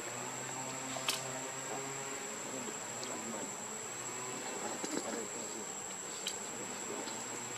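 Insects droning in one steady, high-pitched tone, with a few short sharp clicks, the loudest about a second in and others around five and six seconds in.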